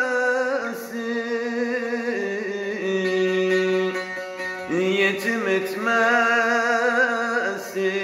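Bağlama (long-necked Turkish saz) playing a folk melody, with a man singing long, wavering held notes over it near the start and again a little past the middle.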